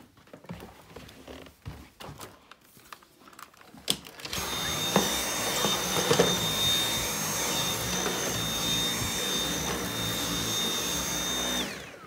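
Dyson V8 Absolute cordless stick vacuum switched on about four seconds in after some handling clicks. It runs steadily with a high-pitched whine. Near the end it is switched off, and its whine falls in pitch as the motor winds down.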